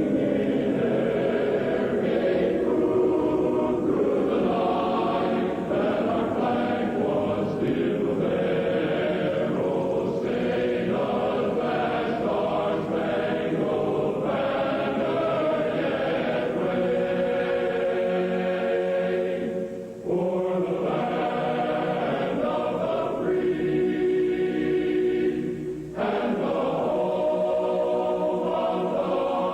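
A choir singing in long, held chords, with two brief breaks between phrases about 20 and 26 seconds in.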